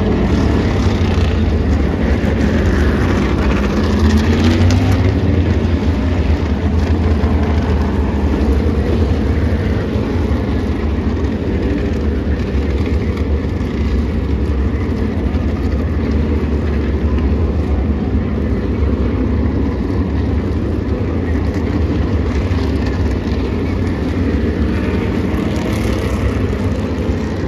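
A field of Tour Modified race cars' V8 engines running together at pace speed behind the pace car, a loud steady rumble. Individual cars sweep up in pitch as they pass a few seconds in.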